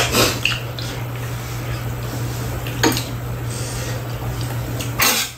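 Metal chopsticks and spoons clinking against bowls during a meal: a few sharp clicks, the loudest near the end, over a steady low hum.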